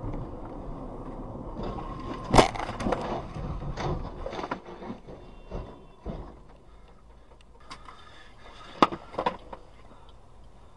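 A car crash heard from a dashcam car over steady road noise: one loud bang about two seconds in, then a clatter of knocks as the car overturns. The road noise dies down after about five seconds, and a few more sharp knocks come near the end.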